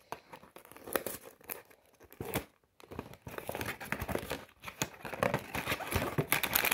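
A cardboard Lego box being opened by hand: rustling and tearing of the card flaps, then crinkling of the plastic bags of bricks inside as they are pulled out, growing busier and louder toward the end.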